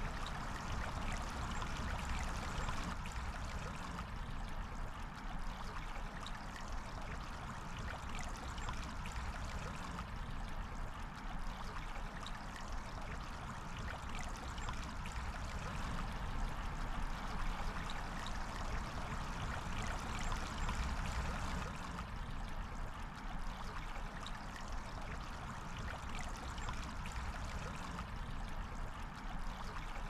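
River water flowing steadily: a continuous rush and babble of running water with fine splashes throughout.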